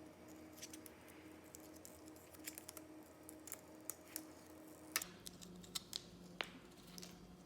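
Faint scattered clicks and crinkles of excess vinyl being peeled and picked off the backing sheet of a freshly cut decal, with a sharper click about five seconds in, over a low steady hum.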